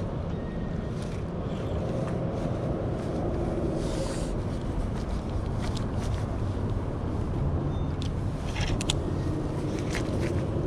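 A steady low engine rumble, with a few sharp clicks about eight and a half seconds in.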